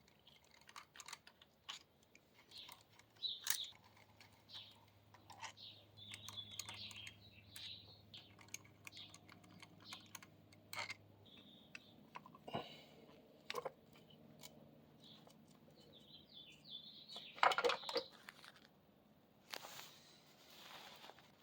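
Faint, irregular light clicks and clinks of hand tools and small metal parts while the cam cover of a Harley-Davidson Evolution V-twin is being taken off, with a louder clatter about seventeen seconds in.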